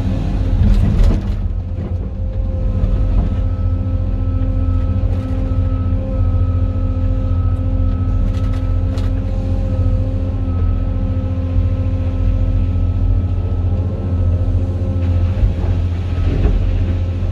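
Cat 390F L excavator's C18 diesel engine working under load, heard from inside the cab: a heavy steady rumble with a steady whine over it and a few knocks as the bucket digs into blasted limestone. Near the end comes a rush of rock pouring from the bucket into a dump truck's bed.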